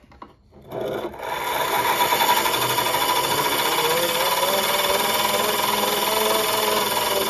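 Hand-cranked grinding wheel spinning with a narrow plough plane iron held against it, a steady grinding noise as the iron is sharpened. It starts about a second in and stops abruptly at the end.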